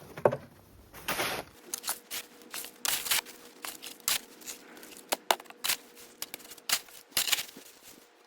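Snow being scooped and crunched into a bucket: a run of irregular crunching scrapes.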